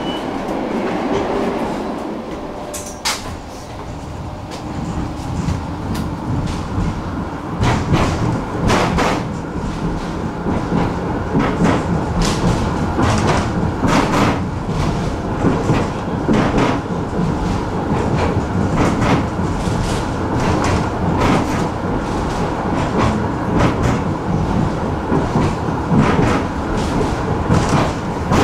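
Tram heard from inside the car as it pulls away and gathers speed. Its running rumble grows louder after a few seconds, with a sharp wheel clack over the rail joints about once a second.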